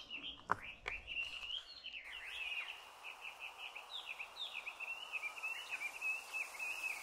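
A songbird singing a long, unbroken stream of rapid, short chirping notes. Two sharp clicks come in the first second.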